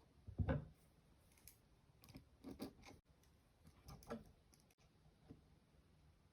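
A few quiet, scattered knocks and clicks of wood pieces and small tools being handled and set in place on a workbench, the loudest about half a second in and a small cluster a couple of seconds later.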